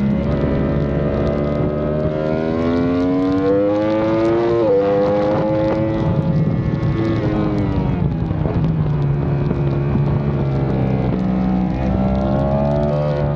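Yamaha R1's inline-four engine at racing revs. The pitch climbs under acceleration with a gear change about four and a half seconds in, falls away over a few seconds, then climbs again near the end.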